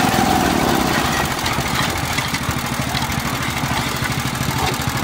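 Motor-driven concrete hollow-block making machine running steadily while concrete mix is filled and packed into its block mould.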